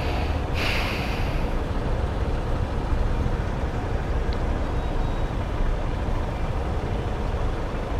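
Honda CG 160 Titan's single-cylinder four-stroke engine idling at a standstill, a steady low rumble under the surrounding stopped traffic. A brief hiss comes about half a second in.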